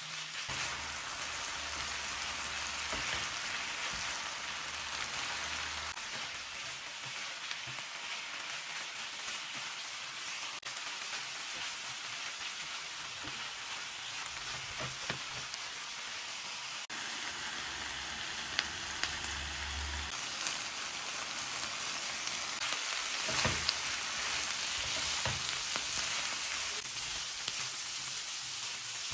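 Food frying in hot oil on a tawa: a steady sizzle with scattered crackling pops, and a few sharper pops in the second half.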